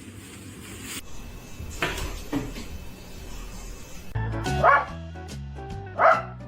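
A dog barking several times in short bursts. Background music with a stepped bass line and a beat comes in about four seconds in.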